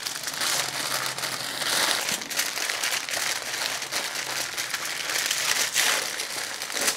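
Aluminium foil, lined with parchment paper, being folded and pressed flat by hand: a continuous, irregular crinkling.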